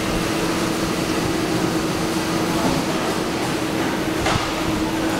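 JT-HCLF-CP chain-link fence machine running, a steady mechanical noise with a constant hum, and one short click about four seconds in.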